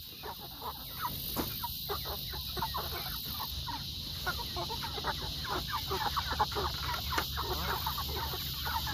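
A flock of meat chickens clucking, with many short calls overlapping, getting a little busier toward the end, over a steady high hiss.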